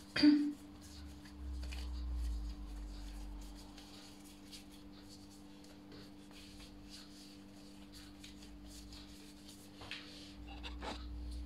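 Hands rubbing and patting soft yeast dough on a floured stone countertop: faint, soft rubbing and scraping, with a steady low hum underneath and a brief low rumble twice.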